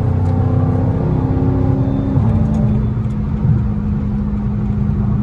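Dodge Charger SRT 392's 6.4-litre HEMI V8 pulling under acceleration at freeway speed, heard from inside the cabin with road noise. Its pitch steps down about two seconds in.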